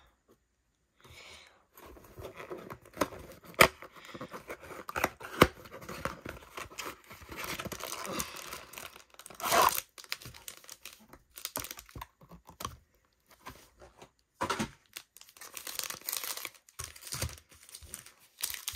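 Cardboard trading-card hanger box being opened and its wrapped card packs handled: irregular crinkling, papery tearing and sharp ticks, busiest in the first half.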